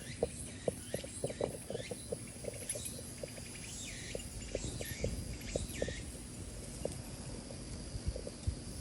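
Irregular light clicks and taps, a few a second, with faint high chirping in the background.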